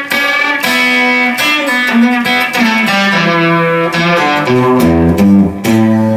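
Twelve-string guitar played solo, picked notes ringing, with low notes stepping down about two thirds of the way through.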